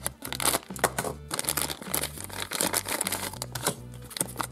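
Plastic wrapping crinkling and rustling in the hands as a sweet-box packet is cut open with a utility knife, then a paper leaflet crackling as it is unfolded, over background music with a low bass line.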